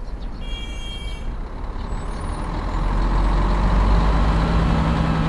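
City bus passing in traffic, its engine rumble building over the first few seconds, with a brief high squeal about half a second in.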